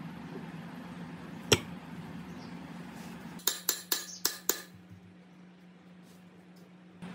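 Hammer blows on a steel drift held against an electric motor's rotor shaft, tapping the rotor into the motor housing during reassembly: one sharp blow, then a quick run of about six ringing metallic strikes a couple of seconds later.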